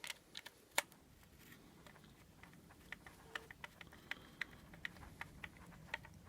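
Faint, irregular small clicks and ticks of a screw being turned slowly by hand into 3D-printed PLA plastic with a screwdriver, cutting its own thread, with one sharper click about a second in.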